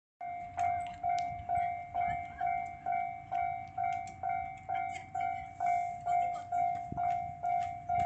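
Japanese railway level-crossing warning bell ringing steadily at about two strokes a second. It signals that the barriers are down and a train is approaching.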